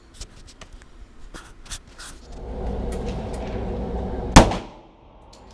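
A single .45 ACP pistol shot about four seconds in, sharp and loud with a short reverberant tail off the indoor range walls. Before it come a few faint clicks, and then a low steady rumble that stops after the shot.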